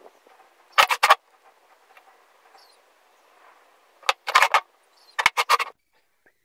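Wooden workpiece knocking against a workbench as it is handled and set down: three short clusters of sharp knocks, about a second in, around four seconds and around five seconds.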